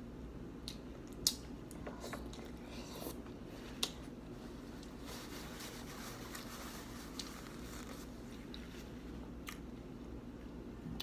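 A person chewing and biting food close to the microphone, with two sharp clicks about one and four seconds in and a denser stretch of chewing in the middle.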